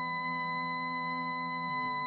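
Instrumental music with a sustained electric organ chord held steady; its lower notes shift down about three-quarters of the way through.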